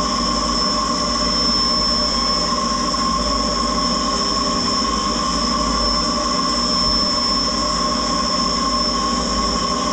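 Puma 2600SY II lathe's live-tool milling spindle running an end mill through Teflon during four-axis simultaneous milling: a steady high-pitched whine over a steady machine hum.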